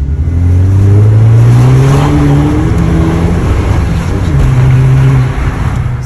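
Opel Astra OPC's 2.0-litre turbocharged petrol engine accelerating through its tuned sports exhaust, heard from inside the cabin. The engine note climbs steadily for about two and a half seconds, then eases and holds at lower revs.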